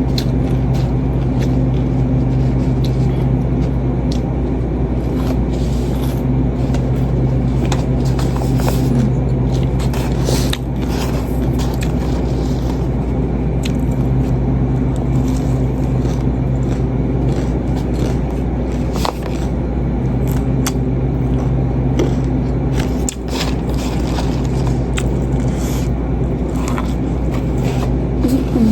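A steady low hum runs throughout, with a scattered light crackle of small crunches and clicks over it.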